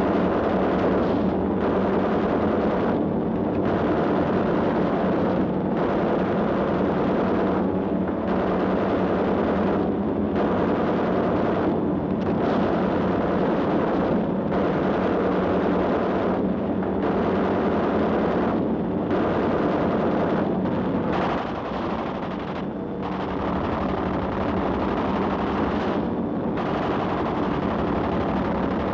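Sustained machine-gun fire mixed with blasts, laid over silent gun-camera film as a sound-effects track. It goes on without letup, with short breaks every couple of seconds.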